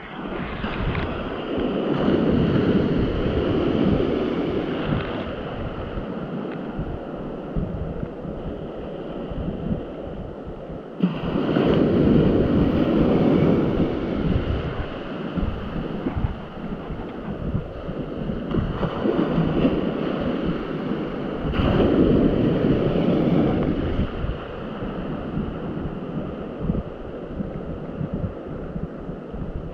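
Wind buffeting the microphone over open sea, with waves washing. The noise swells and eases every several seconds and jumps louder about eleven seconds in.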